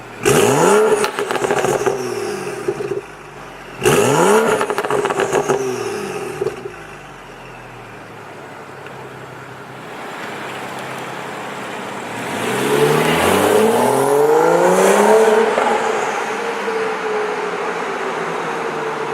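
BMW 435i's turbocharged 3.0-litre inline-six, breathing through a catless downpipe and stock mufflers, blipped sharply twice, each rev followed by popping and crackling burble as the revs fall. Later a longer, slower climb in engine speed and level holds and then eases off.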